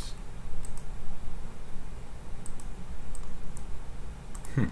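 A handful of sharp computer mouse clicks, scattered and some in quick pairs, over a steady low hum.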